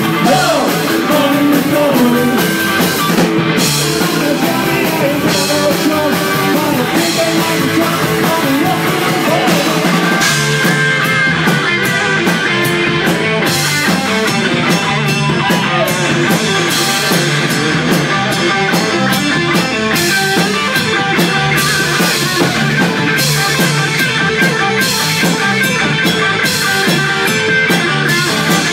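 Live rock and roll band playing loudly: electric guitars and a drum kit with cymbals, and singing.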